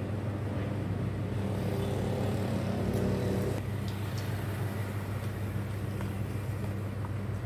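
Steady low hum, joined by a higher droning tone from about one and a half seconds in that stops at about three and a half seconds.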